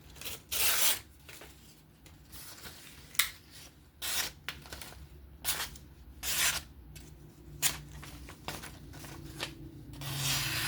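A steel knife blade's edge drawn in a handful of short, irregularly spaced rasping strokes as the edge is honed and checked.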